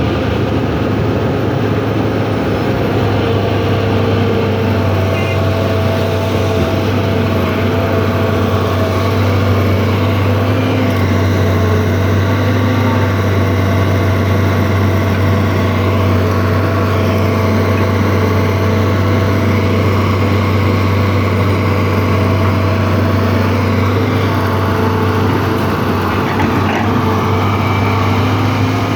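Excavator engine running steadily, with an even, unbroken hum.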